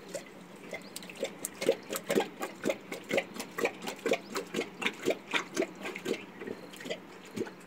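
An Asiatic lion lapping water, with wet slaps about twice a second; the lapping builds up about a second in and thins out near the end.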